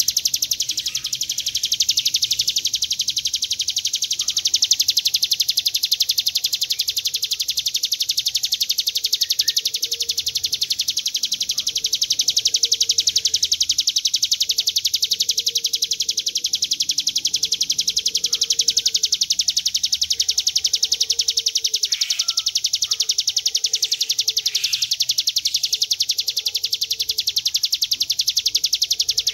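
A prinia (ciblek gunung) singing its long 'ngebren' song: a high, fast buzzing trill of rapid pulses, held without a break.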